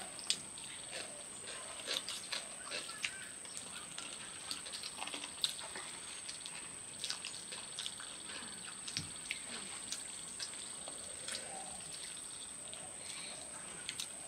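Close-up eating sounds of people eating rice by hand off banana leaves: scattered lip smacks, chewing and wet mouth clicks, with fingers scraping rice on the leaves. A steady high-pitched whine runs underneath.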